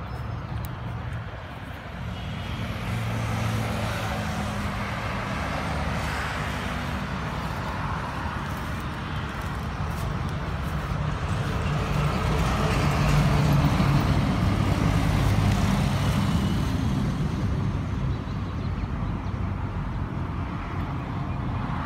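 Road traffic running steadily, with one vehicle's engine growing louder about halfway through and easing off a few seconds later.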